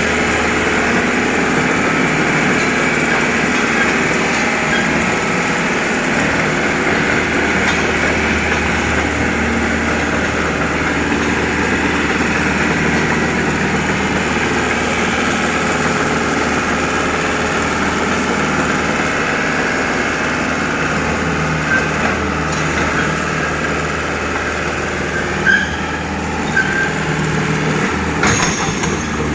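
Heavy-equipment engine running steadily, with a few brief knocks near the end.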